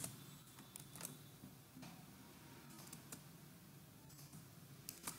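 Near-silent room tone with about half a dozen faint, irregularly spaced clicks from working a computer, such as mouse clicks and keystrokes while editing code.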